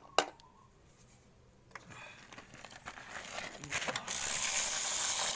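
A single sharp click, then a crinkling, rustling noise that builds and is loudest in the last second or so.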